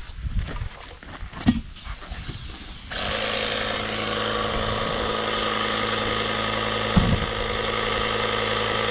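A few knocks, then an air compressor starts about three seconds in and runs steadily, pumping air into a tire to seat its bead on the rim.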